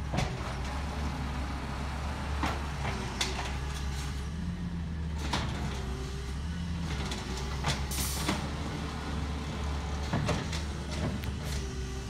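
Compressed-natural-gas automated side-loader garbage truck running while its hydraulic arm lifts and dumps a curbside cart, with repeated knocks and clanks from the cart and arm and a short hiss about eight seconds in.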